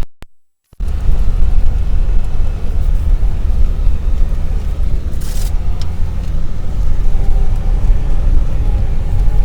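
Off-road vehicle driving, a steady low rumble of engine and road noise. The sound cuts out for about half a second right at the start.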